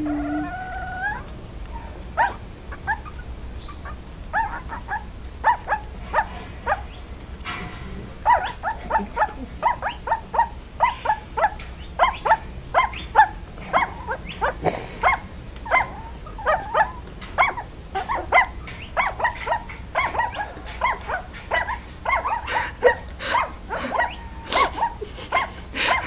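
A litter of very young puppies yipping and crying: many short, high-pitched calls from several pups, few at first and then coming several a second and overlapping from about a third of the way in.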